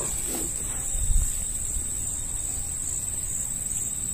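Insects trilling in a steady, high-pitched drone, with a brief low rumble about a second in.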